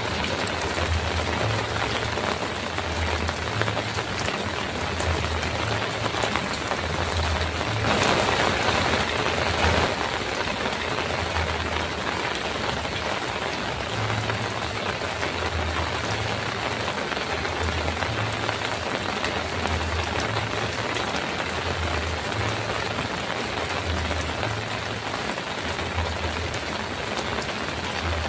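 Heavy rain drumming steadily on a metal roof, swelling louder for a couple of seconds about eight seconds in, with a soft low pulsing rumble underneath.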